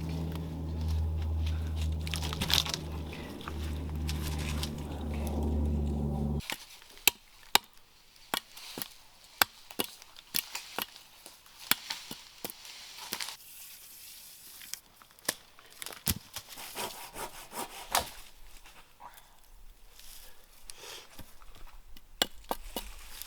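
Wood being worked by hand: a saw rasping through wood among many sharp, irregular knocks and cracks of wood. A steady low hum runs underneath for the first six seconds or so and then cuts off suddenly.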